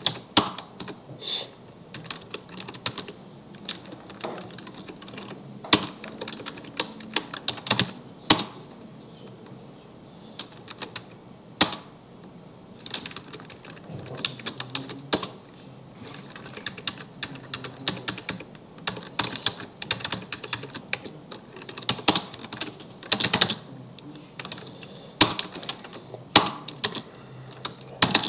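Typing on a computer keyboard: irregular runs of quick keystrokes broken by short pauses, with a few louder single key strikes.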